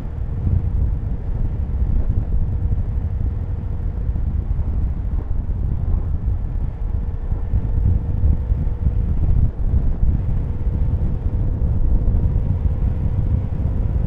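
Wind noise on the microphone over the steady hum of a Kawasaki Z900RS inline-four engine at a constant cruising speed.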